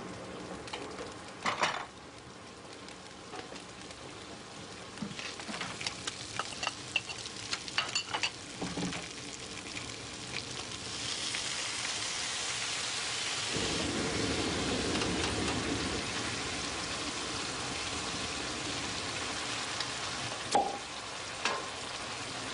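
Kitchen sounds: china cups clinking against each other, then a steady sizzle of food frying in pans on a stove that grows louder and fuller about halfway through. Near the end come two sharp clicks as a corkscrew works on a wine bottle.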